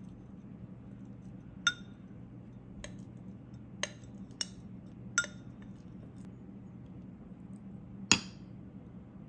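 A metal spoon clinking against the inside of a drinking glass as cooked black glutinous rice is smeared up its walls: about six sharp, separate clinks, the loudest near the end. A low steady hum runs underneath.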